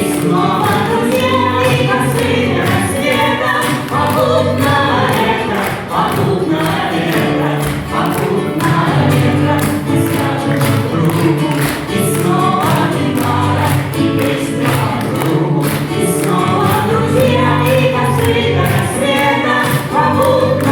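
Song performed by several voices singing together over backing music with a steady beat.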